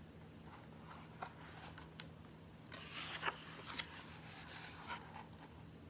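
A page of a hardcover picture book being turned: a short paper rustle about three seconds in, with a few light clicks of handling before it.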